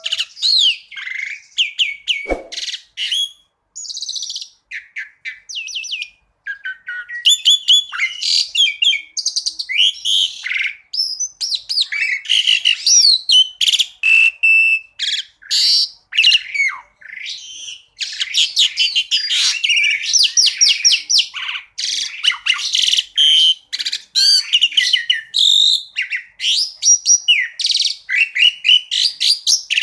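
Asian pied starling (jalak suren) singing a fast, varied run of chirps, rapid repeated notes, trills and whistles, one short phrase after another. A single short low thump is heard about two seconds in.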